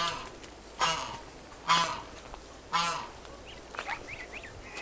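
Domestic geese honking: four loud raspy honks about a second apart, followed by faint high chirps near the end.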